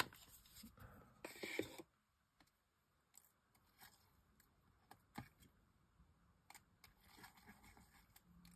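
Mostly near silence, with a short soft scuffing about a second in and a few faint light taps afterwards: a foam ink applicator being dabbed onto a small paper die-cut.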